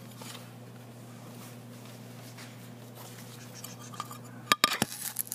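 Steady low electrical hum in a welding shop, then a short cluster of sharp clicks and knocks near the end from handling close to the microphone, as a welding screen is brought over the camera.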